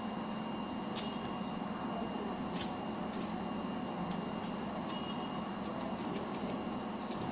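Thick skin of a cassava root being peeled off by hand, giving a few short crackles and snaps, more of them near the end, over a steady background hum.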